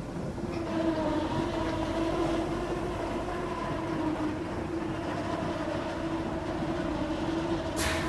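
Feed mill machinery running with a steady pitched drone over a rumbling background, and one short sharp click near the end.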